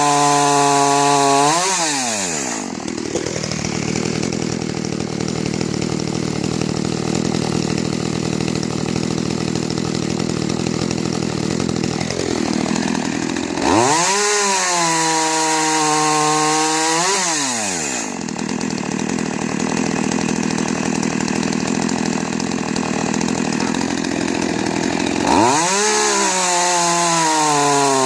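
Makita EA3201S35B two-stroke chainsaw engine revved to high speed, dropping back to idle about two seconds in, revving up again around the middle for a few seconds, idling, and revving once more near the end.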